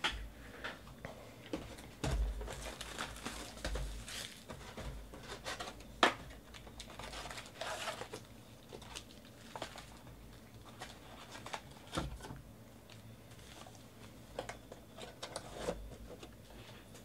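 Cardboard trading-card hobby box being opened and its foil card packs lifted out and handled: crinkling foil wrappers and rustling cardboard, with scattered taps and a sharp knock about six seconds in.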